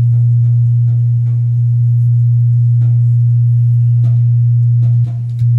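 A steady, loud, low-pitched sine test tone from the sound system during front-of-house setup, used to check the system. It drops in level about five seconds in, then comes back up near the end.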